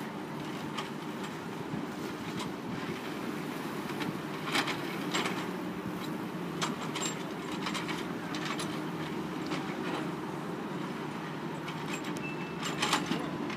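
Steady hum of construction machinery engines running, with scattered sharp clanks and knocks, the loudest a cluster near the end.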